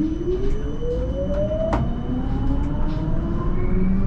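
Siemens Combino C1 tram accelerating along the track: the traction drive's whine rises steadily in pitch over a constant low rumble of wheels on rail, with a few light clicks.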